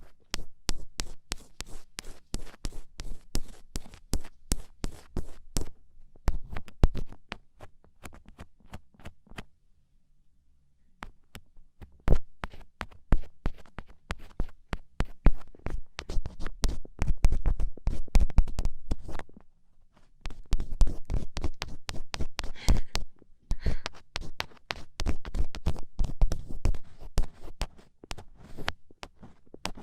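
Black ear pick scratching and scraping inside an ear for ASMR ear cleaning: dense, rapid crackly scratches and clicks. It stops for about two seconds roughly a third of the way in and pauses briefly again about two-thirds of the way through.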